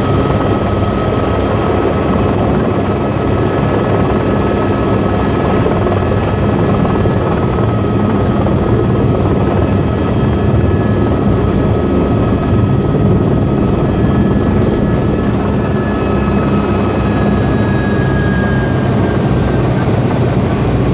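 Turbine tour helicopter running on the ground at close range, with its main rotor turning: a loud, steady rotor and engine noise with a constant turbine whine. Near the end the whine's pitch shifts.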